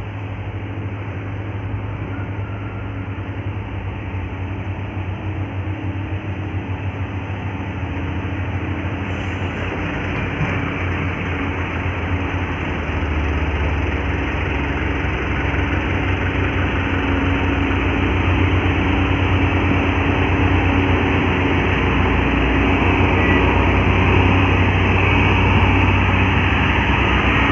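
Heavy diesel vehicle engine labouring up a steep grade under heavy load, with steady road noise and a low, even hum. It grows louder about halfway through.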